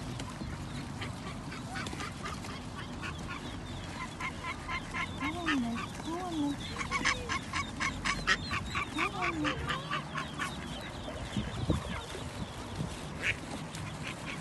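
Mallard ducklings peeping in quick runs of short, high pips, with a few low calls from the hen among them, mostly in the middle few seconds.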